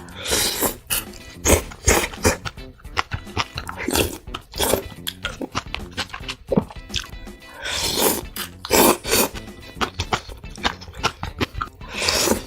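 Close-miked chewing and crunching of food in a mukbang, many irregular crisp crunches with louder bites now and then, over background music.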